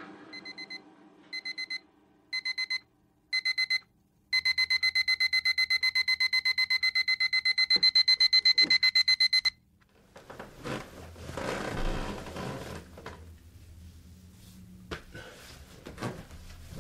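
Electronic alarm clock beeping, first in short groups about once a second, then in a fast unbroken run of beeps that grows a little louder and stops abruptly about nine and a half seconds in. Rustling and a few knocks follow.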